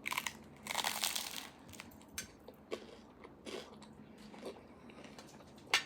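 Biting into crunchy toasted bread spread with roasted bone marrow: a crackly crunch lasting about a second and a half at the start, then a few scattered, softer chewing crunches.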